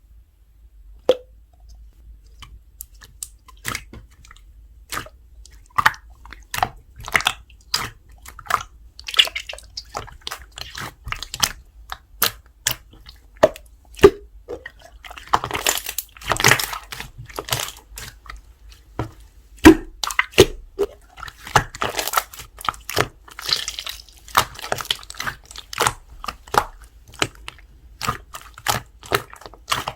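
Slime squeezed, poked and pressed by hand, giving irregular sticky pops and clicks that come thicker from about halfway through.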